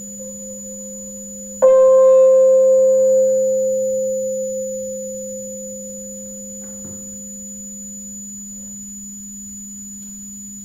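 Electroacoustic free improvisation: over a steady low hum and a thin high whine, a pitched tone is struck sharply about one and a half seconds in and rings out, dying away slowly over about six seconds. A faint click follows later.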